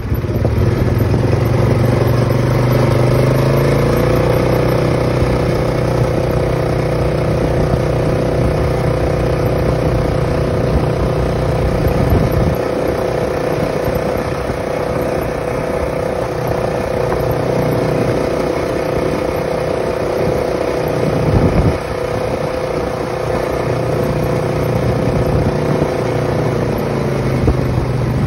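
Polaris ATV engine running while riding, speeding up over the first few seconds, then holding a steady pitch and easing off near the end.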